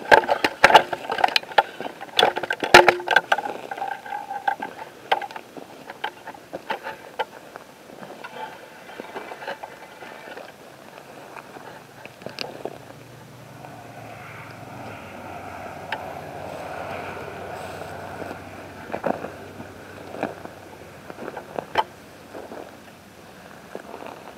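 Footsteps crunching over rocky gravel, with sharp scrapes and knocks of brush and handling against the camera. The knocks come thickest in the first few seconds, then thin out to scattered steps.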